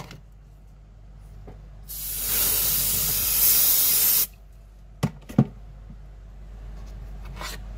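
Aerosol cold spray hissing in one burst of about two seconds, chilling the surface it is sprayed on. Two sharp knocks follow about a second after it stops.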